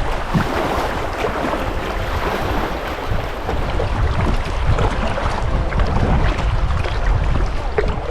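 River water rushing around a moving kayak, with wind rumbling on the microphone.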